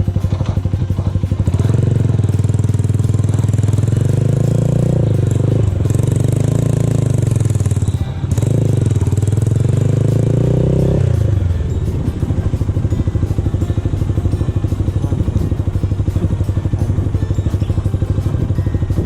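A vehicle engine running under way with a steady fast pulsing. Its pitch rises and falls for the first ten seconds or so, then settles to a steadier drone.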